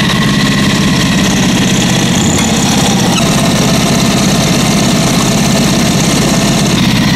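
Chainsaw engine idling steadily, running at an even speed with no revving.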